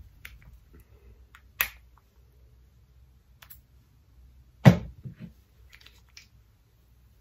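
Handling noises as leave-in hair milk is dispensed and worked between the hands: a sharp click about one and a half seconds in, then a louder thump near the middle followed by a few softer knocks and rustles.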